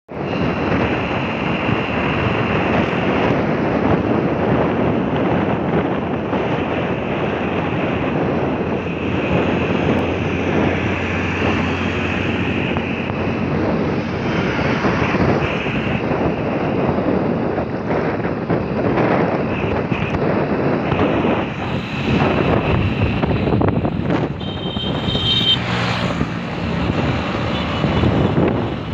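Wind rushing and buffeting over the microphone of a two-wheeler moving at road speed, with road and engine noise underneath.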